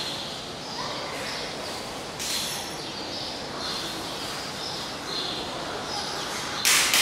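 Small birds chirping over and over, with a short rushing hiss about two seconds in and a louder one near the end.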